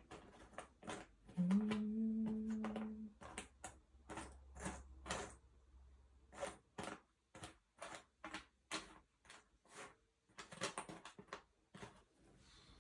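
Jigsaw puzzle pieces being handled: irregular small clicks and rustles as pieces are picked up, tried and set down on the table, about one or two a second. About a second and a half in, a short steady low hum lasts about a second and a half and is the loudest sound.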